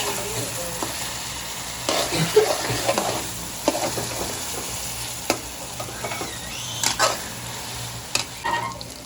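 Karela chicken sizzling as it fries in a pan while it is stirred. A utensil knocks and scrapes against the pan irregularly, most busily between about two and three seconds in.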